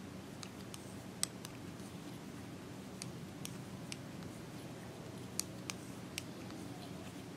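Knitting needles clicking against each other as stitches are worked: about ten faint, sharp clicks at irregular intervals over a steady low hum.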